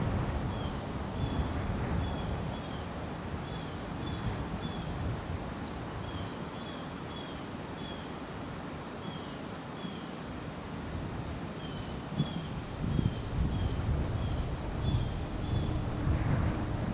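Wind gusting over the microphone as a low rumble, easing off midway and building again over the last few seconds. Short high chirps repeat about twice a second throughout.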